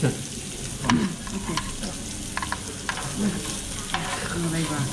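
Meat sizzling on a tabletop Korean barbecue grill pan: a steady frying hiss, with a few sharp clicks of metal utensils.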